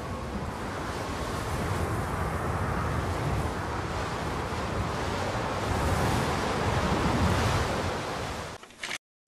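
A rushing, wind-like noise over a low rumble, slowly swelling. Near the end it cuts off abruptly, leaving silence broken by a couple of brief blips.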